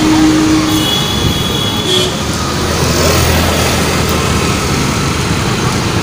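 Road traffic heard from a moving motor scooter: wind rushing over the microphone and engine and tyre rumble, with a brief high tone about a second in.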